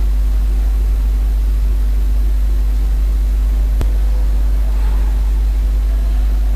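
Steady low hum with a faint hiss underneath, the recording's own background noise; a single sharp click comes a little under four seconds in.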